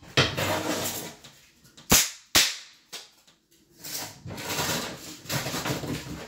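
Two sharp impacts about half a second apart, around two seconds in, amid stretches of scuffing and rustling from cabinet installation work.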